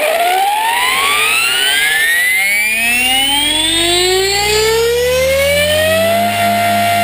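HK450 electric RC helicopter spooling up: the motor and gear whine rises steadily in pitch for about six seconds as the rotor comes up to speed, then holds at a steady pitch.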